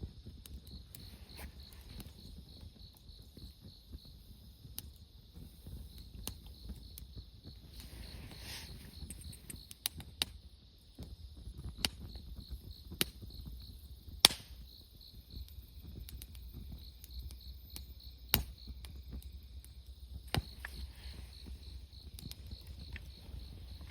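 Wood fire burning with scattered sharp pops, one louder crack in the middle, over a low rumble. Insects chirp in a steady, fast pulsing rhythm behind it.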